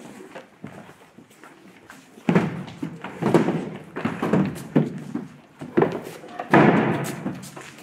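Wooden stage scenery (flats, crates and platforms) being carried and set down on a stage floor: irregular knocks and thuds with some scraping, echoing in a large hall, the heaviest knock about six and a half seconds in.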